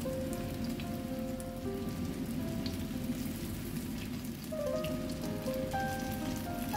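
Zucchini fritters sizzling and crackling in hot oil in a frying pan, a steady spattering hiss with scattered tiny pops. Soft background music notes play over it.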